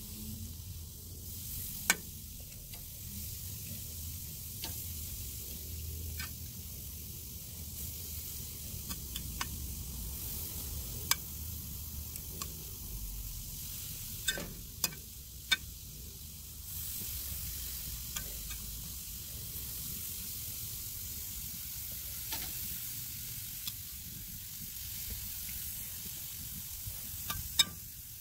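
Marinated chicken gizzards sizzling on a charcoal grill over low heat: a steady hiss broken by scattered sharp pops and crackles, a few clustered about halfway through and one near the end.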